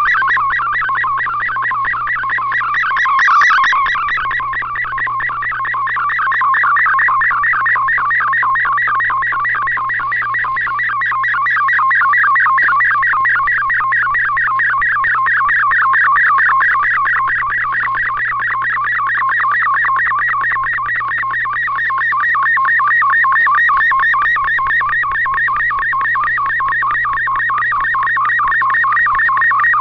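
Shortwave MFSK digital picture transmission heard through a communications receiver: a dense, rapidly warbling data tone confined to about 1 to 2 kHz, each pixel's brightness sent as a shift in pitch. A steady low hum sits underneath.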